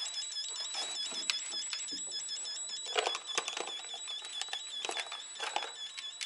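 High electronic warbling tone from an electrical circuit tester, wavering about five times a second, with scattered clicks and rustles from wiring being handled.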